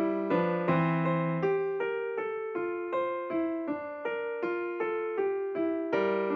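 Background music: a keyboard melody on a piano-like instrument, single evenly spaced notes about three a second, over a low held bass that drops out after about a second and a half.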